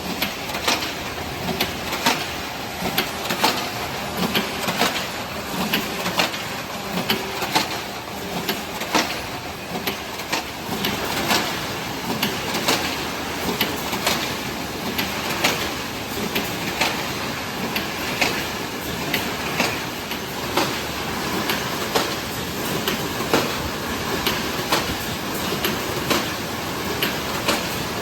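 Automatic can body welding machine running at production speed: a steady mechanical clatter with a sharp clack about every 1.3 seconds, the beat of cans being formed and welded at about 45 a minute.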